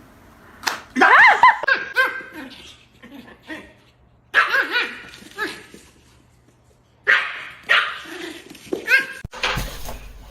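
A dog barking and yipping in four short bursts a few seconds apart, with whining calls that rise and fall in pitch; the first burst, about a second in, is the loudest.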